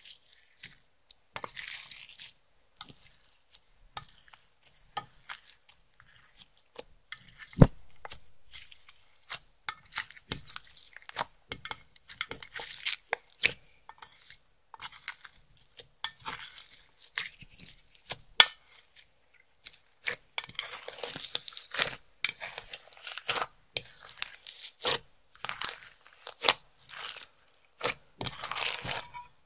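Clear slime mixed with makeup and glitter being squished and stretched by hand: irregular sticky pops, clicks and crackles, coming thicker in the last third.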